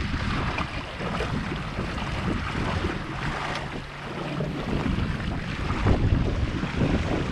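Wind buffeting the GoPro microphone in rough gusts, with a faint low hum for a second or so about halfway through.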